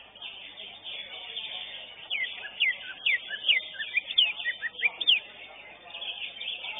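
Greater green leafbird (cucak hijau) singing a quick run of loud, sharp whistled notes that slide up and down, lasting about three seconds in the middle, over a dense background of high chatter.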